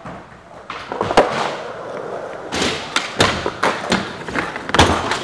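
Skateboard rolling, with a series of sharp clacks and knocks as the board pops, its trucks hit and grind along a ledge, and it lands, the knocks loudest in the second half.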